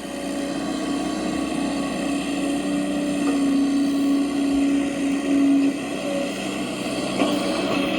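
Small electric motor of a radio-controlled construction model running with a steady whine that eases off about six seconds in.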